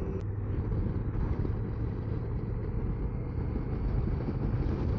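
Honda CRF1000L Africa Twin's parallel-twin engine running at a steady cruising speed, mixed with steady wind and road noise.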